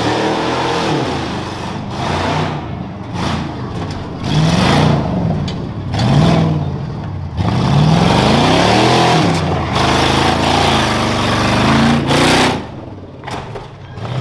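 Rough truck's engine revving hard and easing off over and over, its pitch climbing and falling several times. The throttle is cut sharply about seven seconds in and again near the end.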